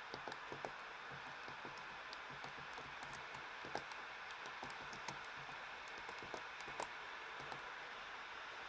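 Light, irregular clicks from a 2016 MacBook Pro, about fifteen in seven seconds, with one a little louder near the middle, over a steady hiss.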